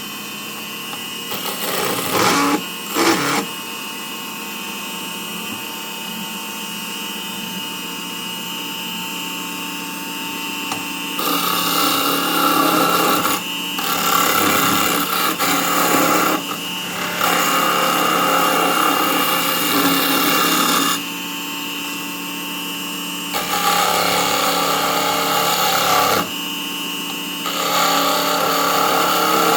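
Small benchtop wood lathe running steadily with a constant motor whine, while a turning tool cuts the spinning wood. The cut comes in five rasping passes of a few seconds each, the first about a third of the way in, with two brief scrapes near the start.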